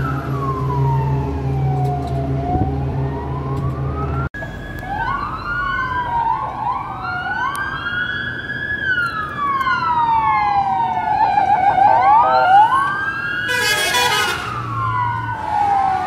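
Fire engine sirens wailing, each slowly rising and falling in pitch. For the first four seconds a single siren sounds over a truck engine running; after that several sirens overlap out of step, with a short loud blast near the end.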